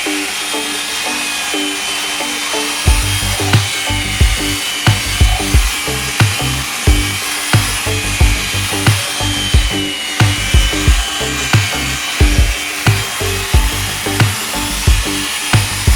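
Background music with a steady drum beat coming in about three seconds in, over a continuous hissing, whirring tool noise.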